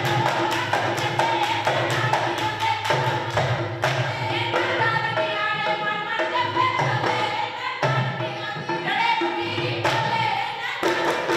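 Live Punjabi giddha music: women singing folk verses over a steady percussion beat, the singing strongest in the middle and the beat strongest at the start and near the end.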